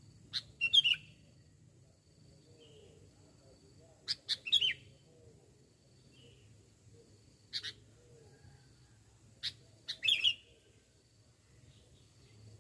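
Sooty-headed bulbul (kutilang) calling: four short bursts of quick chirpy notes, spaced a few seconds apart.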